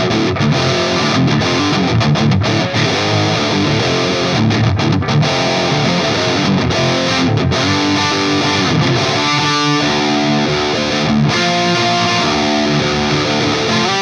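Distorted electric guitar, a Gibson Les Paul with Burstbucker pickups, played through a Mesa Dual Rectifier Roadster on Channel 4 in Modern mode and heard through a Celestion Vintage 30 4x12 cabinet impulse response. A busy stretch of notes gives way to longer held notes about halfway through.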